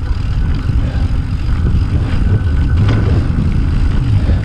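Steady rumble of wind on the microphone and tyres rolling over a dirt trail as a mountain bike is ridden, with a few faint ticks from stones or the bike.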